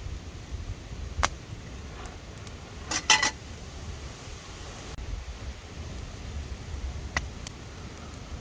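A few light metallic clinks of cookware and utensils, the loudest short cluster about three seconds in, over a steady low rumble of strong wind on the microphone.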